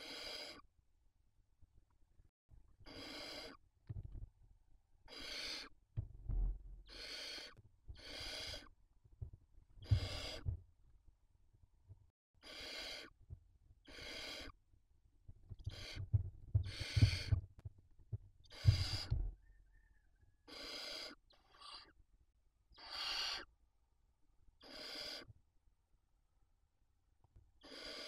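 Barn owls in a nest box giving harsh, rasping hiss calls, each under a second, repeated every second or two. Low thumps and scuffling from the birds moving about on the nest floor come between the calls and make the loudest moments.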